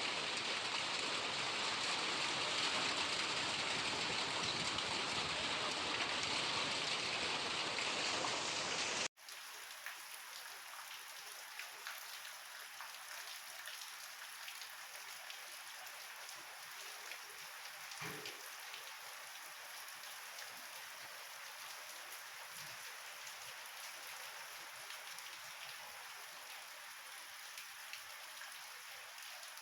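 Rain falling: heavy and loud for about the first nine seconds, then an abrupt cut to lighter, quieter rain.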